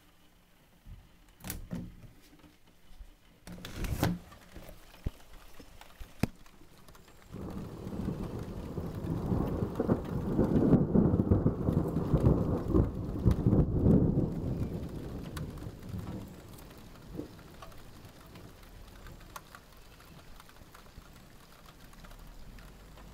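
Thunder: a long rolling rumble that builds about seven seconds in, is loudest around the middle, and dies away over a few seconds, with rain falling underneath. A few sharp clicks come before the rumble.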